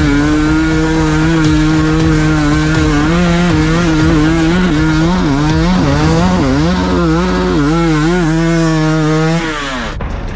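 Enduro dirt bike engine running at high revs under load on a steep climb, its pitch held high and wavering as the throttle is worked, the wavering growing choppier later on. The revs drop away suddenly near the end.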